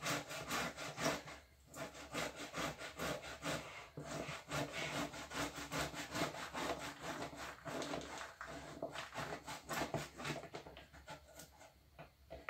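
A carrot rasped up and down the coarse side of a metal box grater into a plastic bowl: a quick, even run of scraping strokes, about three or four a second, with a few brief pauses. The strokes thin out near the end.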